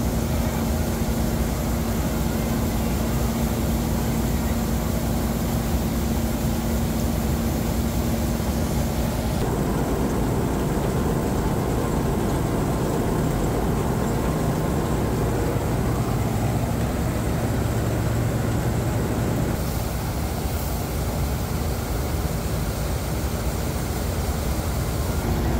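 Claas Crop Tiger 40 combine harvester running steadily while its unloading auger pours threshed paddy into a trailer. The machine noise shifts in tone twice.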